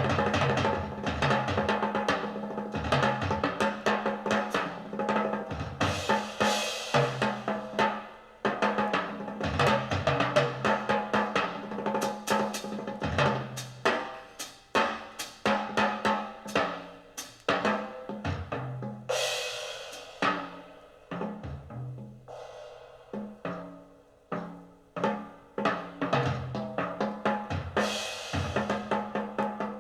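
Jazz drum kit played as a solo: rapid snare and tom figures with bass-drum strokes, and cymbal crashes that ring out now and then. Low sustained tones run underneath.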